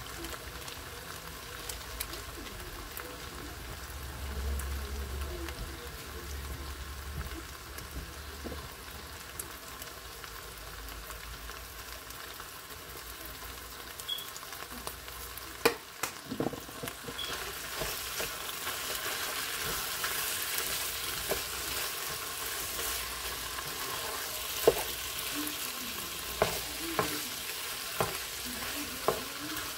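Vegan ground meat and onions sizzling steadily in a frying pan, the sizzle growing louder a little past the middle. In the last few seconds a spatula knocks repeatedly against the pan as the cheese slices are chopped into the mixture.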